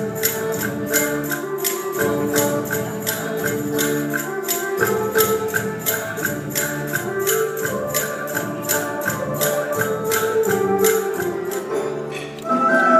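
Traditional Vietnamese music accompanying a water puppet show: a steady pulse of jingling percussion, about four strokes a second, under held melodic notes. Just after twelve seconds in the music dips, then a louder passage with rising notes begins.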